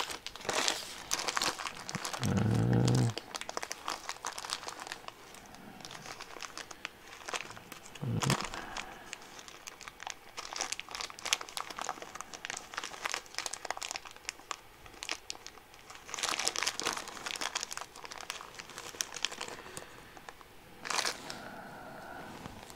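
Crinkling and rustling of a small plastic parts bag being handled, with the small brass pivot balls inside clicking against each other in irregular bursts.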